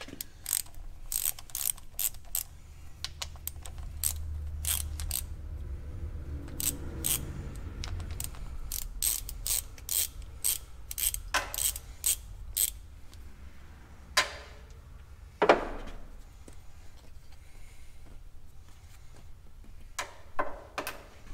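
Ratchet wrench with a 10 mm socket clicking in quick runs as it backs off the valve cover nuts on a small diesel engine. Two louder knocks come about two-thirds of the way through.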